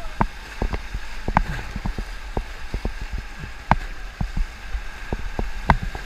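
Whitewater rapids rushing steadily around an inflatable raft, with a low rumble and many irregular sharp splashes and knocks as paddles dig into the water and waves slap the raft.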